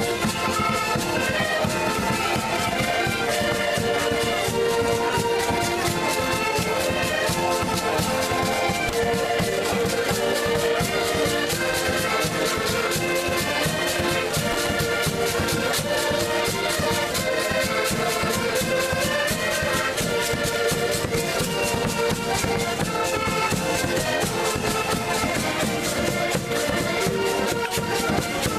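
Traditional Portuguese folk band playing live: several accordions carry the tune over a strummed small guitar, and a bass drum struck with a stick keeps a fast, steady beat.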